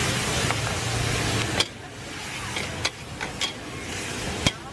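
Chicken and vegetables sizzling in a hot wok while a metal spatula stir-fries them, with several sharp clinks of the spatula striking the wok. The sizzle is loud at first and drops away abruptly about a second and a half in.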